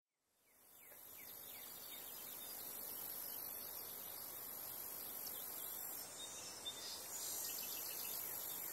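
Faint outdoor evening ambience fading in about a second in: a steady high-pitched insect chorus, with a few short chirps.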